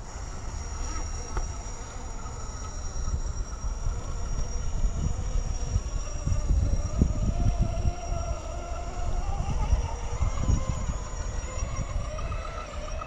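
RC rock crawler's electric motor whining, its pitch rising and falling with the throttle as it creeps over rock, under an uneven low rumble.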